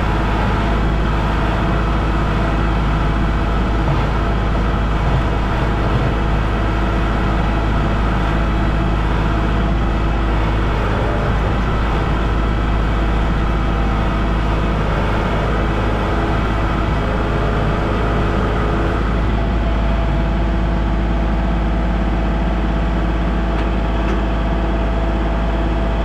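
Compact tractor's engine running steadily while the tractor plows snow with its front blade. Its note changes about three-quarters of the way through.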